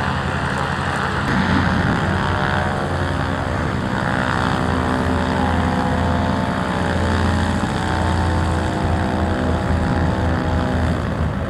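Fuji FA-200-180 Aero Subaru's four-cylinder Lycoming engine and propeller running steadily at taxi power.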